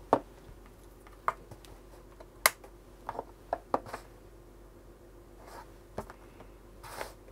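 Scattered light clicks and taps of multimeter test probes and a cable plug being handled and set down on a workbench. The sharpest click comes about two and a half seconds in, with a quick run of taps a second later.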